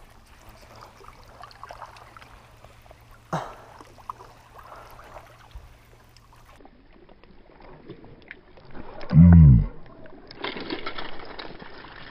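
Gentle lapping water at a rocky lakeshore while a lure is worked, with one faint click about a third of the way in. About nine seconds in comes a short, low, loud exclamation from a man as a smallmouth bass strikes. Then there is steadier noise as the hooked fish is played on rod and reel.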